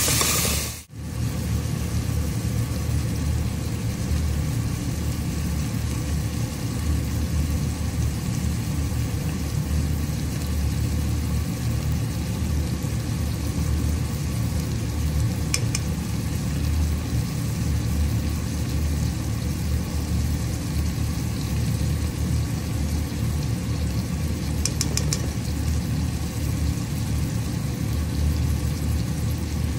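Frying sizzle that cuts off about a second in, followed by a steady low mechanical rumble with a couple of faint ticks.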